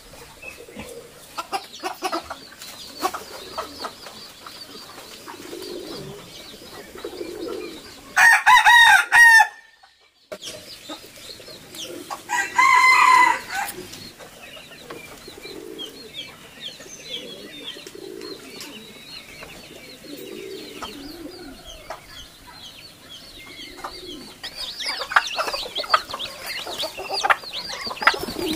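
Farmyard poultry: a rooster crows loudly about eight seconds in and again some four seconds later, over steady hen clucking and high chirping, with the chirping busier near the end.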